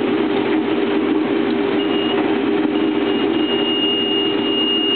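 Case IH 2388 combine running steadily while shelling corn, heard from inside the cab as a constant hum. About two seconds in a thin, steady high-pitched tone starts, breaks off briefly, then holds.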